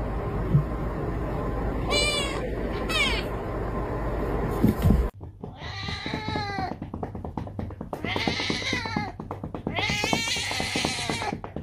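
Cats meowing: a kitten gives two short meows, then a white cat yowls three times in long, wavering meows while its rump is patted with quick rhythmic taps.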